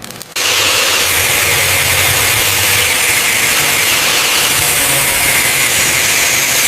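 Steady machine noise, a loud hiss over a low rumble, that starts abruptly about half a second in and holds even.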